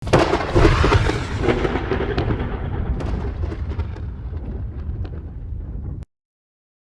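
Riakeo Max Load #2 fireworks cake, a 29-shot multi-shot cake, firing a dense run of aerial bursts: many sharp cracks over a heavy rolling rumble, loudest in the first second or two and slowly fading. The sound cuts off suddenly a little after six seconds.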